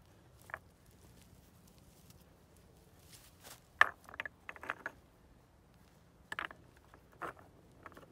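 Small stones being set in place and stacked by hand, with scattered clicks and knocks of stone on stone, the loudest about four seconds in.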